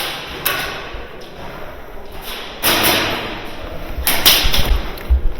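A string of sharp knocks and clacks, with a half-second burst of rustling noise and heavy low bumps on the microphone, the kind of handling and movement noise picked up by a camera worn in the middle of a game.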